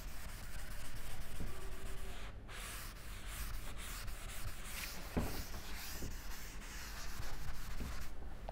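A duster scrubbing across a chalkboard, wiping off chalk in repeated rubbing strokes, with a short break about two and a half seconds in.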